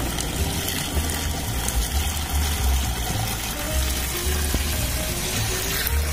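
Water pouring steadily from a bucket into a plastic knapsack sprayer tank, splashing through the strainer basket in the filler, over background music.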